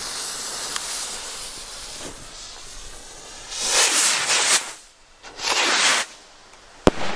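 Fireworks rocket fuses hiss steadily as they burn down and spray sparks. The rockets then launch with two loud whooshes, about three and a half and five and a half seconds in. Near the end come a few sharp cracks.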